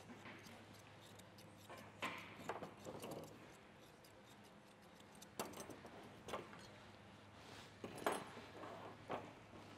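Faint, irregular snips and clicks of grooming scissors and combs working a Shih Tzu's coat, a few at a time with gaps between, the sharpest about eight seconds in, over a steady low hum.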